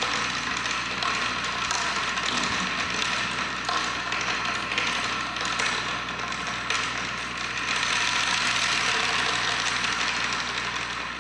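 An ensemble of Chinese drums played together in fast, light rolls: a dense, steady patter of many quick strokes that swells about eight seconds in and eases near the end.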